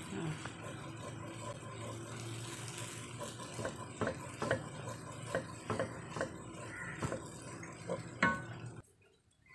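Rice vermicelli being stir-fried in a non-stick wok, a wooden spatula tossing and scraping the noodles over a steady frying hiss. From about a third of the way in come a dozen or so irregular sharp knocks of the spatula against the pan, the loudest near the end, and then the sound cuts off suddenly.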